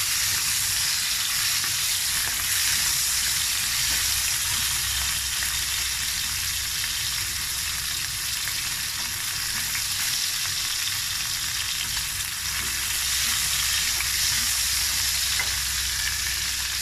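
Diced pork and garlic frying in hot oil in a stainless steel pan: a steady sizzle, with a few light scrapes and taps of the spatula as it is stirred. The pork is browning.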